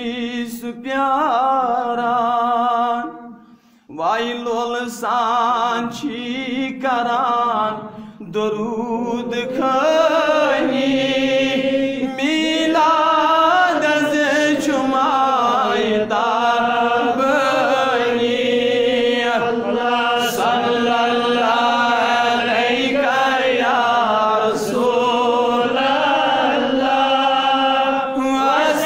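A man singing a Kashmiri naat unaccompanied, in long wavering held notes that slide between pitches. He sings phrases with short breaths between them at first, then sings unbroken from about ten seconds in.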